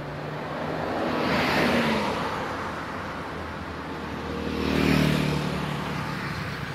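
Two road vehicles drive past one after the other, the engine and tyre noise swelling and fading, the first passing about a second and a half in and the second around five seconds in.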